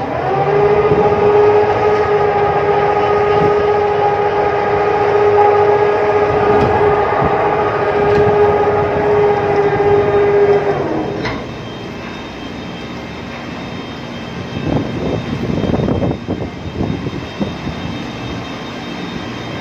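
Rescue boat davit winch motor running: a loud steady whine with several overtones that comes up to speed at once, holds for about eleven seconds, then winds down and stops. A lower, steady machinery noise with a few knocks remains after it.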